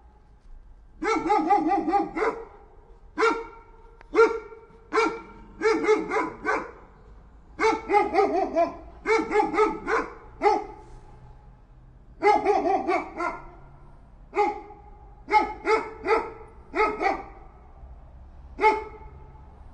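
A dog barking repeatedly, in runs of one to four quick barks with short pauses between them.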